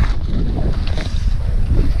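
Wind buffeting the microphone: a loud, gusty low rumble with no speech over it.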